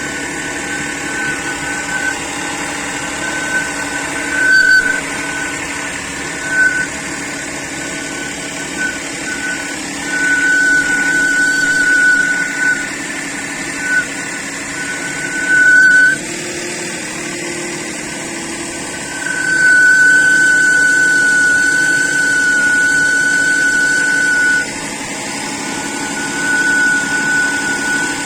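Engine running with a high, steady-pitched whistle that fades in and out, growing louder for a few seconds at a time. The cause of the whistle is unknown.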